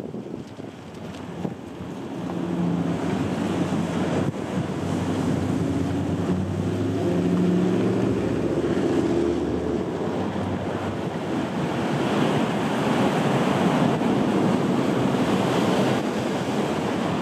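Ocean surf breaking and washing against the rocks, with wind buffeting the microphone. The wash swells about two seconds in and stays strong, with a low rumble underneath until about ten seconds in.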